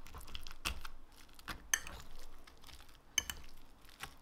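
Metal fork clinking and scraping against a ceramic bowl while mixing shredded fried chicken, mashed potato and gravy: irregular light taps, with sharper clicks about a second and a half in and about three seconds in.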